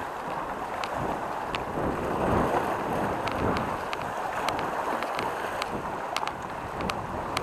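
Sea water washing and splashing against shoreline rocks, with gusts of wind buffeting the microphone. A dozen or so sharp ticks are scattered through it.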